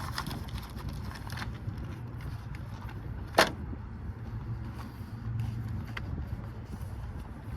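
Semi truck's engine and road noise heard as a steady low drone inside the cab, with a sharp click about three and a half seconds in.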